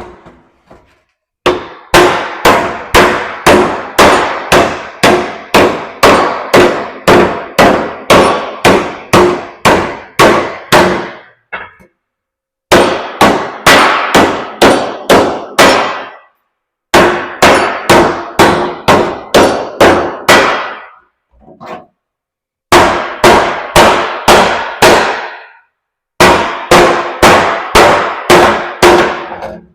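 Hammer beating on a steel part: rapid, regular ringing clangs, about two to three blows a second, in five runs with short pauses between them.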